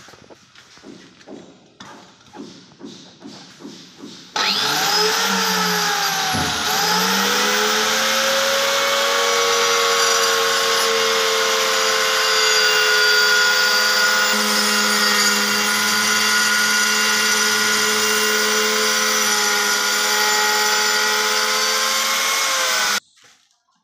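Handheld electric marble cutter with a diamond grooving blade starts about four seconds in and cuts a groove along a granite step slab: a steady high motor whine over a gritty stone-grinding hiss. The pitch dips briefly soon after it starts, then holds steady until it stops suddenly near the end.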